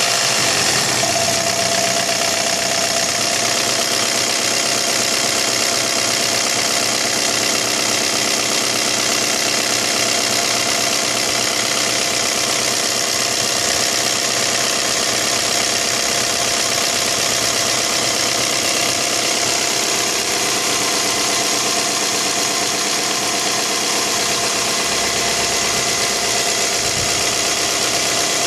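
Diesel engine running steadily at idle, with an even diesel clatter.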